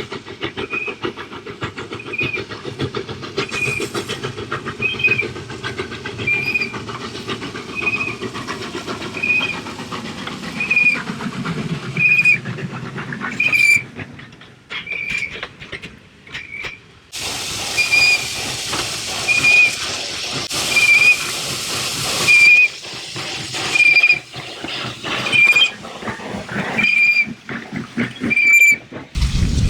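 Old steam locomotive on the move, with a short high squeak about every 1.4 seconds, over a running rumble and clicks, and a strong hiss of leaking steam in the second half. The squeaks and leaks are signs of poor maintenance.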